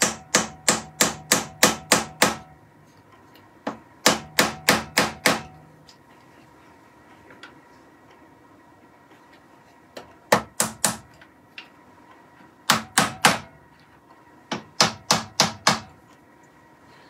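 Small metal-headed hammer tapping turned wooden parts down onto dowels in a wooden board: sharp wooden taps, about four a second, in five runs with pauses between.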